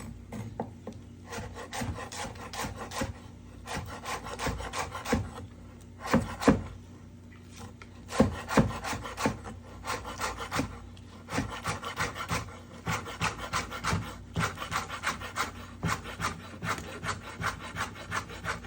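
Kitchen knife chopping scallions on a cutting board: a run of quick, repeated strokes, with a few harder knocks about six and eight seconds in.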